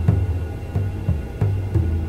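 Looped hypnotic drum music: deep low drum strikes about every two-thirds of a second with lighter hits between them, over a faint steady drone.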